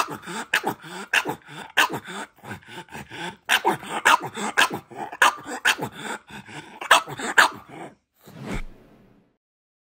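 Pug barking over and over, about two sharp barks a second, with a short break partway through. The barking stops near the end.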